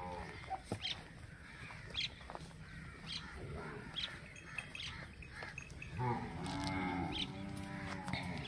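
Water buffalo lowing once, a low drawn-out moo of about two seconds starting some six seconds in, with faint clicks before it.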